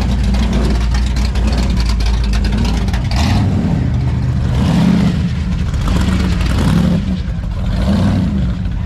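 Car engines running with a low steady rumble that swells several times.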